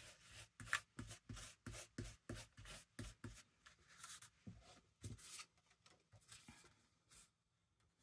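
Faint, rhythmic dabbing of Distress Oxide ink through a stencil onto paper, about three soft taps a second, thinning out after about five seconds.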